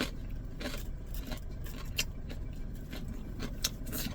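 Steady low hum of a car, heard from inside the cabin, with scattered small clicks and rustles of things being handled.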